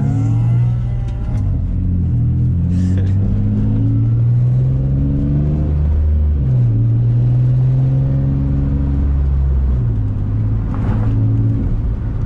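Turbocharged Infiniti G35's VQ35 V6 engine pulling while driving. Its pitch climbs steadily and then drops suddenly twice, at the gear changes, with a few short hisses.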